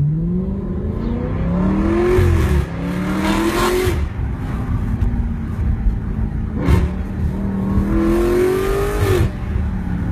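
Audi RS7's twin-turbo V8 through an Armytrix aftermarket exhaust, revving: the pitch climbs and drops back several times, with a steadier stretch in the middle and a single sharp crack about two-thirds of the way through.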